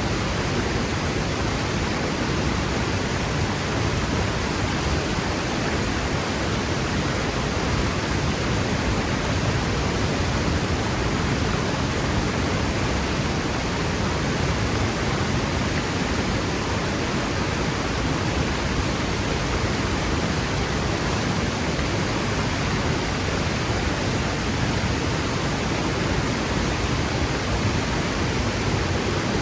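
Waterfall plunging and crashing onto rock, a steady dense rush of falling water with no breaks or changes.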